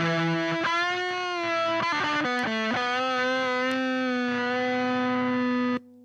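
Reverend Sensei electric guitar played through the SAE Effects Beldam boost/fuzz pedal into a miked Frenzel Bassman amp, heavily distorted. A few bent notes with vibrato lead into one long sustained note of about three seconds, which cuts off suddenly near the end.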